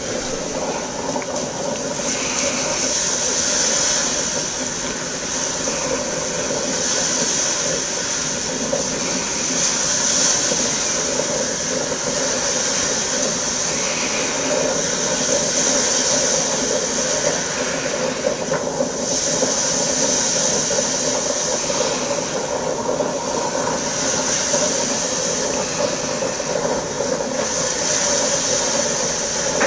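Waves washing up on the beach every few seconds over a steady rush of wind and water, with a boat's engine running as the boat approaches at speed.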